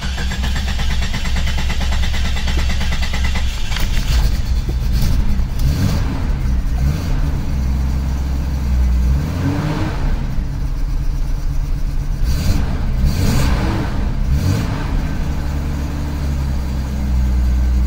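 Jeep Cherokee XJ's 4.0-litre straight-six catches right at the start and settles into a steady fast idle at about 1,200 rpm. The pitch rises and falls twice near the middle. This is the first start on newly fitted 4-hole fuel injectors after an ECU reset, with the computer relearning.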